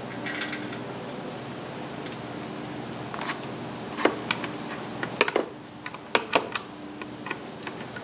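A screwdriver and hands working at a plastic camera license-plate frame against the metal plate: a run of sharp clicks and scrapes, bunched between about four and seven seconds in, over a steady low hum.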